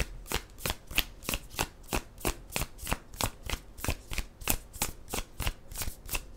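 A tarot deck being shuffled by hand, the cards slapping together in an even rhythm of about three soft clicks a second.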